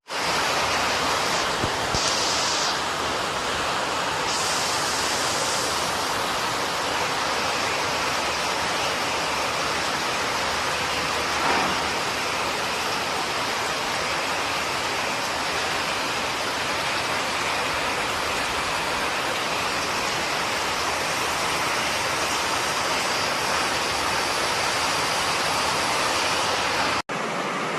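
Steady, loud rush of flowing floodwater, an even noise with no distinct events, with brief extra hiss a couple of seconds in and again around four to six seconds; it cuts off abruptly near the end.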